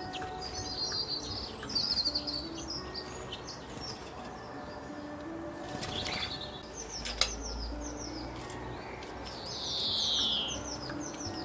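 Small birds chirping and trilling in high, quick notes, several calls overlapping, with a louder falling trill near the end.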